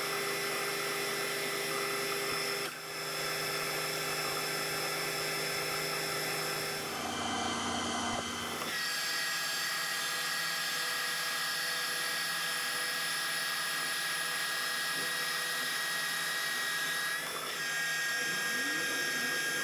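AL960 metal lathe running, turning down a 4140 steel bar: a steady whine from the machine's drive with the cut going on. The pitch of the whine shifts a few times, with a brief low hum about seven to nine seconds in.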